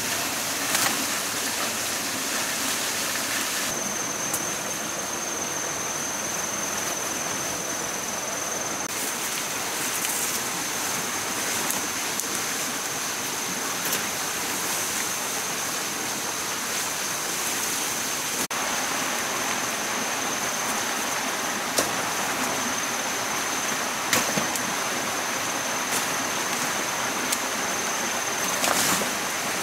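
Steady rushing of a rainforest stream. A thin, steady high-pitched tone sets in a few seconds in and stops near the end, and a few faint clicks stand out from the water noise.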